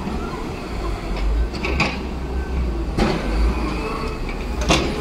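Compact wheel loaders' engines running as they push snow with front plow blades, with three sharp clanks spread through, the last near the end.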